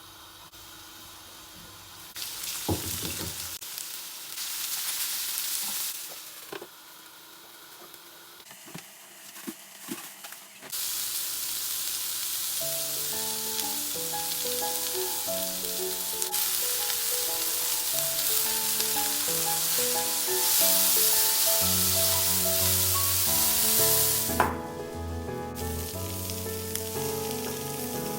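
Steady hissing noise, a short stretch a couple of seconds in and then a long stretch from about eleven seconds that stops suddenly near the end, with a few light clicks between them. Soft melodic background music plays through the second half.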